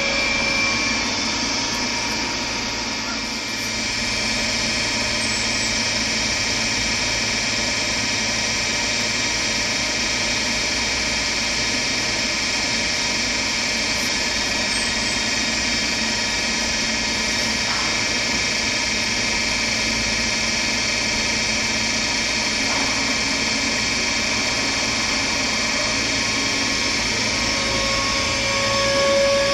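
DB Regio electric multiple unit standing at the platform, its onboard equipment giving a steady hum with several steady whine tones. Near the end a rising whine starts as the traction motors take power and the train pulls away.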